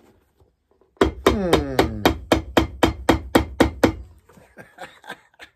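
Cobbler's hammer beating a shoe sole on a metal last: a quick run of strikes, about four or five a second, starting about a second in, then lighter, spaced taps near the end.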